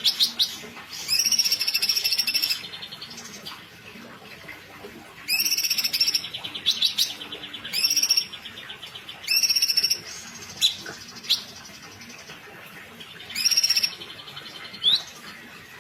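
Female cucak cungkok singing in loud, rapid bursts of high, buzzy trills about a second long. Between the bursts come a few short, sharp rising whistles, and quiet gaps of a few seconds.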